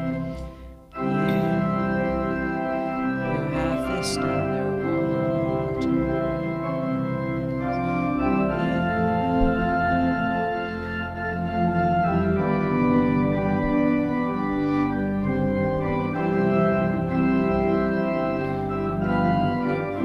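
Organ playing a hymn tune in sustained, changing chords, with a short break just under a second in before it goes on.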